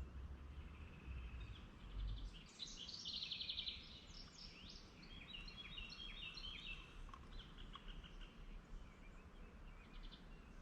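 A small bird singing: a fast trill about two and a half seconds in, then a string of short chirps for a few seconds, over a faint low rumble.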